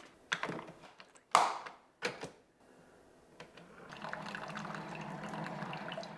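A few knocks and clacks of things being handled on the counter, the loudest about a second and a half in, then a Keurig single-cup coffee maker brewing: a steady pump hum with coffee streaming into the mug, cutting off suddenly near the end.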